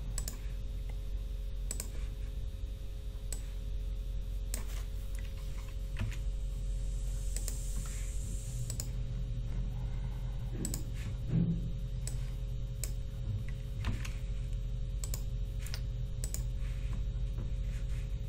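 Irregular clicks of a computer mouse and keyboard at a desk, over a steady low electrical hum.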